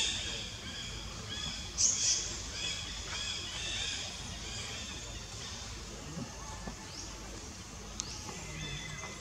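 High-pitched animal calls: many short chirping notes repeating over a steady background, with a louder, sharper call about two seconds in.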